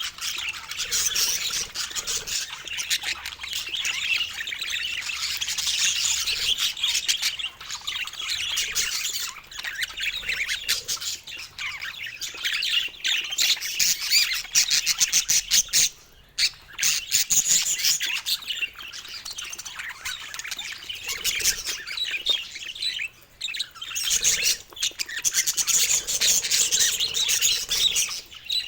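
Baby budgerigars chirping and chattering continuously in dense, high-pitched, rapid calls, with brief lulls about sixteen and twenty-three seconds in.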